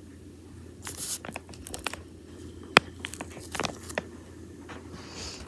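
Hands working at a cardboard advent calendar box: scattered rustling and tearing with sharp clicks, one much louder click a little before the middle.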